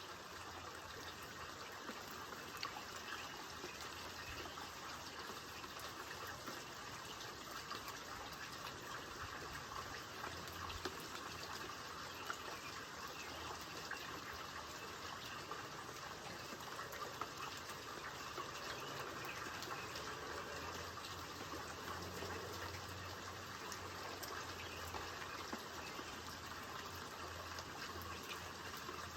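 Steady rain falling: an even hiss with many scattered little drop taps.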